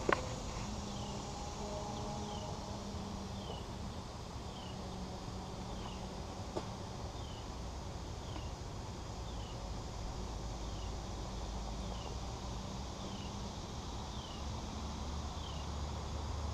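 Outdoor ambience: a short, high, falling chirp repeating about once a second over a low steady hum, with one faint click near the middle.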